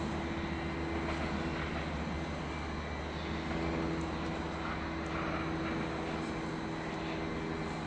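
DB Class 425 electric multiple unit running over the station tracks, a steady electric drone with several held tones over rolling noise; a lower tone joins about three seconds in.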